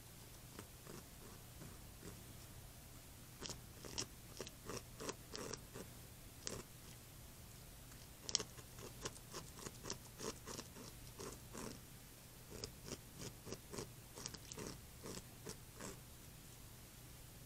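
Beaver gnawing into a tree trunk: an uneven run of short, crisp crunching bites, several a second, starting a few seconds in and stopping near the end.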